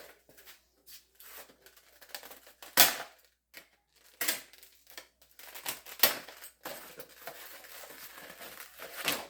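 Broadhead packaging being handled and unpacked: rustling and crinkling with scattered sharp clicks and knocks, the loudest about three seconds in, and a steadier rustle near the end.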